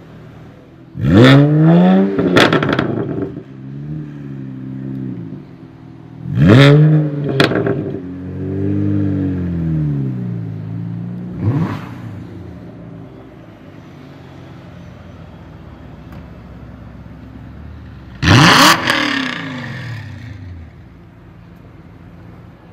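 BMW 1M Coupé's twin-turbo straight-six revved hard three times, each rev rising sharply and falling back, with loud backfires and crackles from its anti-lag system and a single bang near the middle.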